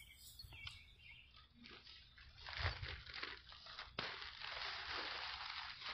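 Plastic bag crinkling as it is handled, starting about a second and a half in and growing denser after a sharp click about four seconds in.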